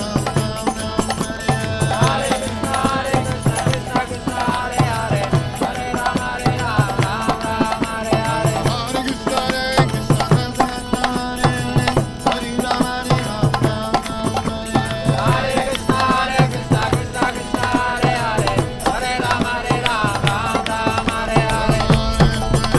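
Kirtan: a group chanting a devotional mantra in call-and-response singing, with a mridanga drum beating a steady rhythmic pattern and small hand cymbals striking on the beat.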